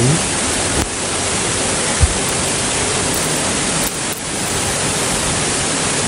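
Steady rushing noise of a waterfall close by, its wind and spray blowing hard. There is a short low thump about two seconds in.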